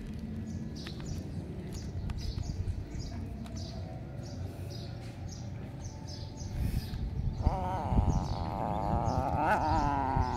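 Small birds chirping over and over in the background. From about seven and a half seconds in, a kitten gives a long, wavering cry as it bites at food on a feeding stick.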